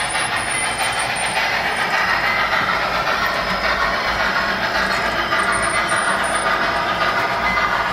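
On3 narrow-gauge model steam train running along the track, giving a steady, continuous running noise of wheels on rail.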